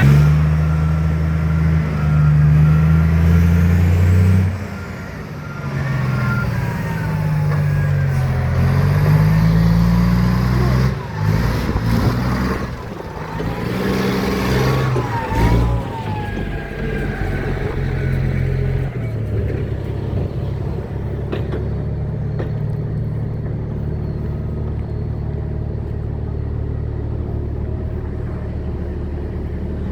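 Heavy diesel engine of earthmoving machinery revving up and down under changing load, with a few knocks around the middle. Past about two-thirds of the way through it settles into a steady, lower running note.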